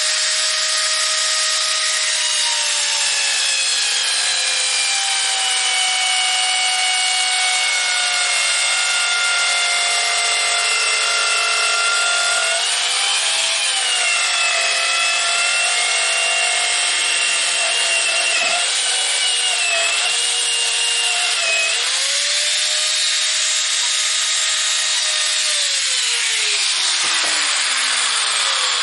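Electric mini circular saw cutting through a laminate parquet plank. The motor's whine sags and wavers while the blade is loaded in the cut, climbs back once it runs free, then winds down in a falling glide after it is switched off near the end.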